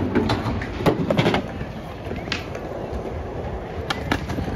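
Skateboard wheels rolling over concrete with a steady rumble, broken by several sharp clacks of the board and trucks hitting the concrete, two of them close together near the end as the board meets a ledge.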